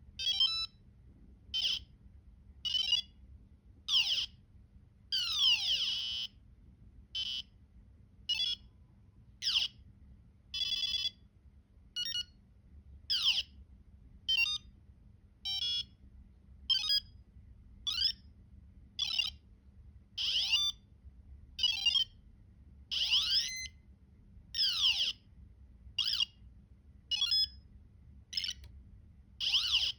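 A small electronic buzzer on a microcontroller board plays a run of short sound effects, one about every second. They are high-pitched beeps, quick warbles and trills, with a few falling and rising pitch sweeps.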